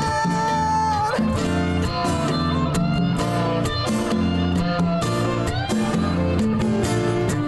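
Live rock band playing an instrumental passage: an electric guitar plays a lead line over bass guitar, rhythm guitar and hand percussion. The lead holds one long note near the start, then moves through a run of shorter notes.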